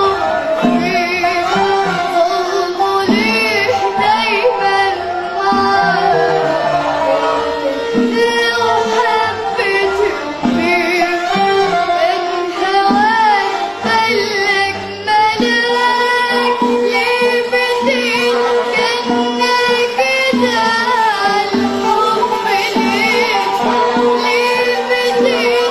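A young girl singing an Arabic song in an ornamented, wavering vocal line, accompanied by a live band with a drum beat.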